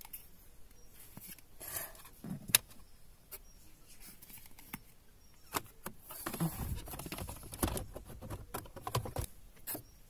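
Hand-handling noise under a car dashboard: scattered clicks, taps and rustles of plastic parts and wiring as the heater blower fan is fitted back into its housing. A sharp click comes about two and a half seconds in, and a busier spell of handling noise runs from about six to nine seconds.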